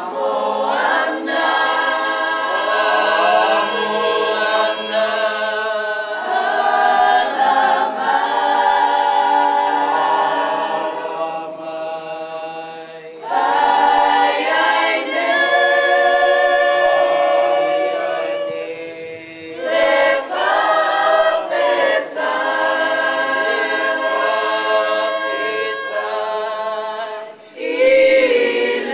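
Unaccompanied choir singing in several voices, long held phrases with short breaks between them.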